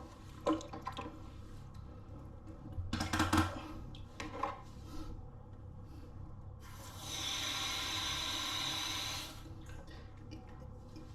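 Water running in a bathroom for about two and a half seconds, from a tap or shower while kittens are being bathed, after a few brief knocks and movement noises earlier on.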